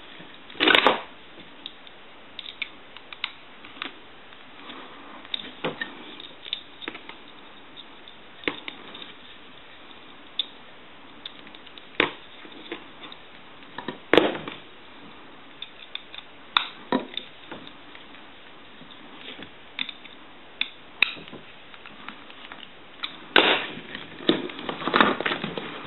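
Scattered clicks, taps and knocks of small parts being handled as the receiver is fitted back into a payphone handset, with a sharper knock about a second in, another about midway, and a quick cluster near the end.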